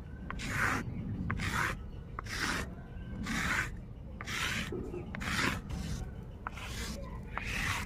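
Rhythmic rasping strokes, about one a second, on a sil grinding stone slab, working a wet paste of ginger, green chilli and cumin.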